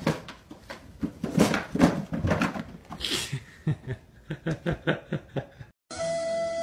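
A person laughing in a run of short breathy bursts that settle into an even series of about four a second. The laughter cuts off abruptly near the end and flute music begins.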